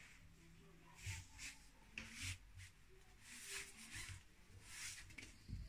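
Faint rustling and brushing of hands and a cloth tape measure sliding over suit fabric, in short irregular strokes.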